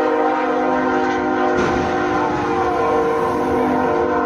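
Locomotive air horn sounding one long, unbroken warning blast, a chord of several steady tones, for a level crossing with a tractor-trailer on it.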